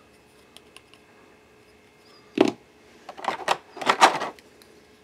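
Handling noise from a plastic microphone mount and a vacuum-formed plastic packaging tray on a desk: a few light clicks, a sharp knock about two and a half seconds in, then a short run of rattling knocks and scrapes.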